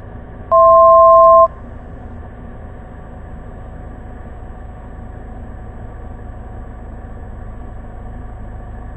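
A loud two-note electronic beep, held for about a second, sounds over the steady drone of a Cessna 172's engine and cabin noise.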